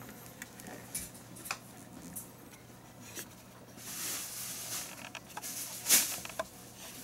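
Light clicks and rustles of a clear plastic tube case holding a triangle scale being handled, with a sharper click about six seconds in.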